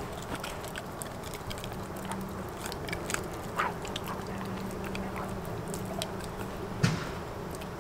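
A dog gnawing on a long chew stick: irregular crunching and clicking bites, the loudest a little before the end.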